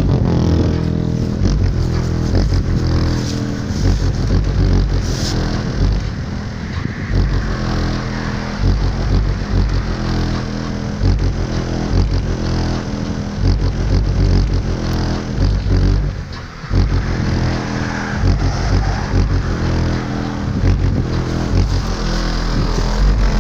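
Kicx Tornado car subwoofer playing bass-heavy music loud from a makeshift box, the deep bass notes changing in a steady rhythm.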